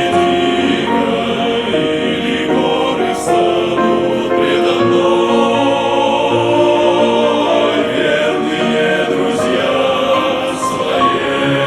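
Choir singing a Christian song with long held notes.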